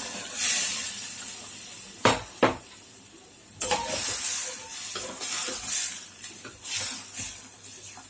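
Boiled mutton pieces sizzling in hot masala oil in a pressure cooker pot while a metal spoon stirs them. The spoon knocks sharply against the pot twice about two seconds in, followed by scraping and clinking.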